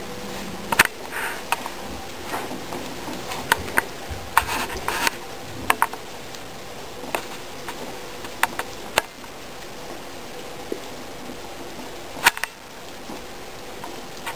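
Guinea pigs eating leafy greens in wood-shavings bedding: irregular sharp clicks and short rustles from chewing and from stems and shavings being pulled about, the loudest click about a second in and another near the end.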